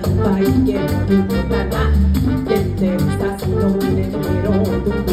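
Live Latin band playing an instrumental groove: congas and drum kit keeping a steady beat under electric bass, keyboard and trumpet.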